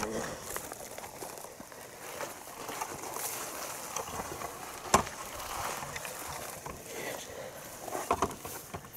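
Rustling and crackling of dense gorse scrub as a person pushes through it on foot, with one sharp crack about five seconds in.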